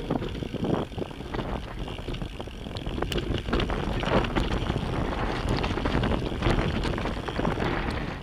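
Mountain bike riding rough singletrack: the tyres roll and crunch over the ground and the bike rattles with many small clicks and knocks, and wind buffets the camera microphone.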